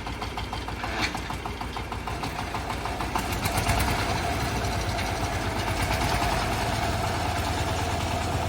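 Compact tractor engine running with a rapid clatter. About three seconds in it grows louder, and a steady whine joins it.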